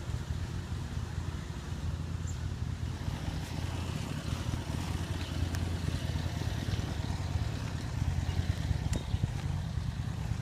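Outdoor air-conditioner condenser units running: a steady low hum from the compressors, with fan noise over it.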